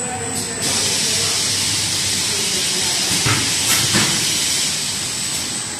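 Factory-floor machinery noise along a production line: a steady hiss that comes up about half a second in and holds, under a thin, steady high whine, with a few light clicks a little past the middle.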